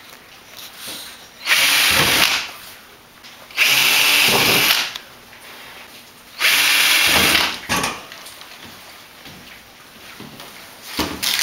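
Cordless drill boring holes through a paper template into a board: three runs of about a second each, a couple of seconds apart.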